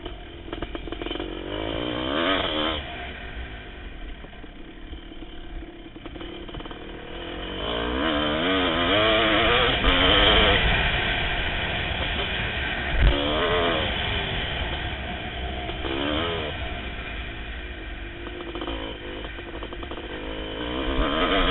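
1988 Kawasaki KX500's two-stroke single-cylinder engine, revving up and dropping back again and again under hard throttle, with wind rumble throughout. A single sharp knock about 13 seconds in.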